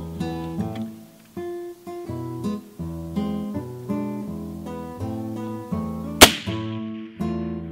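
Strummed acoustic guitar music, with a single sharp, loud rifle shot about six seconds in that rings off briefly: the report of a Cimarron 1874 Sharps single-shot rifle in .45-70.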